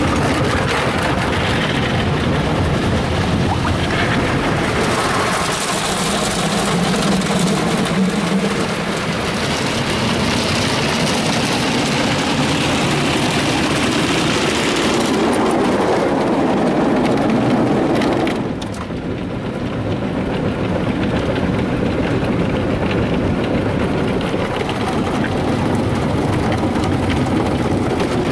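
Brushes of a Ryko Softgloss Maxx rollover car wash scrubbing the car under spraying water, heard from inside the car. The sound is loud and steady; about two-thirds of the way through the hissing spray drops away suddenly and a lower rumble of the brushes and machine carries on.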